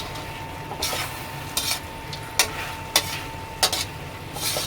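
A cooking utensil stirring and scraping in a pan of simmering chicken adobo with eggplant: about six sharp clinks and scrapes over a steady sizzle.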